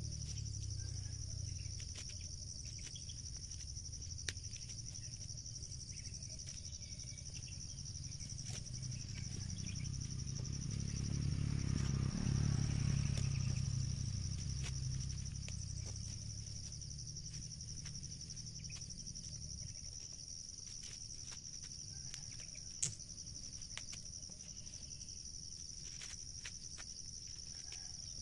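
A steady, high insect drone over dry rustling and crackling of corn husks being torn off the ears by hand. A low rumble swells and fades in the middle.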